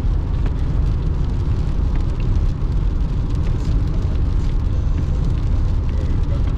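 Steady road noise inside a car's cabin while driving in heavy rain: a constant low rumble with a fainter wash of rain and tyre spray over it.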